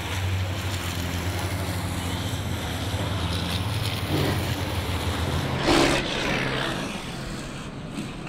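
Racing trucks' diesel engines running at speed, a steady low drone. Near six seconds in comes a short, loud burst of noise, the loudest moment.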